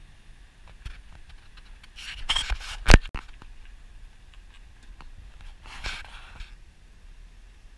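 Handling noise from a hand-held camera: scraping and rubbing about two seconds in, ending in a sharp knock, then a second brief rub around six seconds in.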